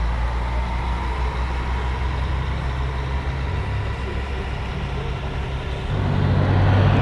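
Diesel engine of a double-decker coach driving away, a steady low rumble that grows fainter. About a second before the end a louder engine rumble of another bus comes in.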